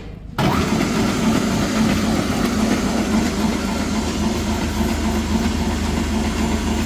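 Hollymatic 180-A mixer grinder's three-phase electric motor starting abruptly about half a second in as the start button is pressed, then running steadily with a hum.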